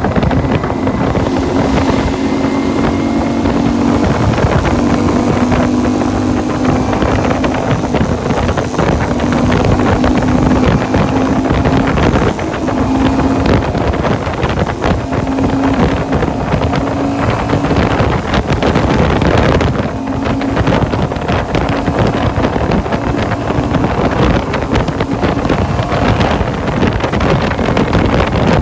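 Lifan Lycan LF250 V-twin motorcycle engine running steadily under load, climbing a grade at about 55–65 mph on taller 42/17 gearing, with heavy wind rush on the microphone.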